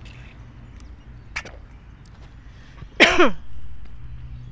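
A woman clears her throat once, a short loud sound dropping in pitch about three seconds in, after a drink. A small click comes about a second before the midpoint.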